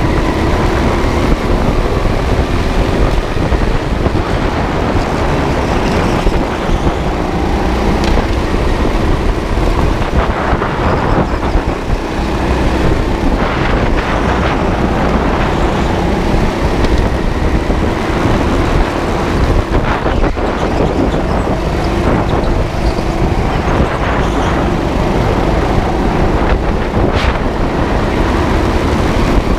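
On-board sound of a go-kart lapping at racing speed: steady low rumble and wind noise on the camera microphone over the kart's running noise. Faint tones drift up and down in pitch as it speeds up and slows for the corners.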